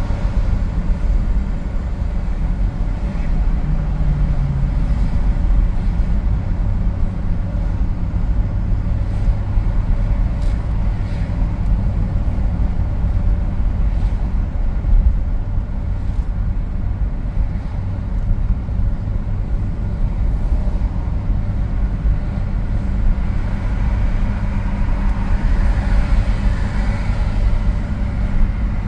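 Steady low rumble of a car cruising on a highway: tyre and road noise heard from inside the cabin.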